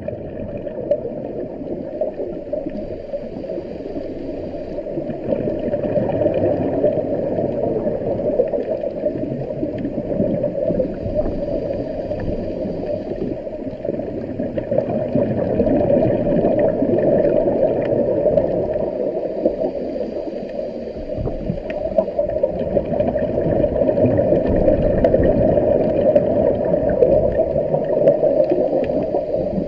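Muffled underwater noise picked up through a camera's waterproof housing: a steady rushing rumble of water with gurgling, swelling and easing slowly.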